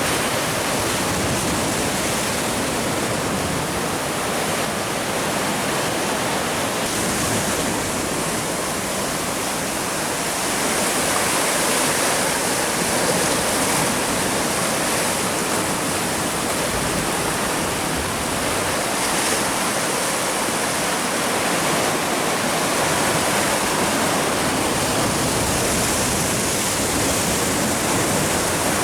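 Steady rushing of sea water washing and foaming over shoreline rocks, swelling a little now and then.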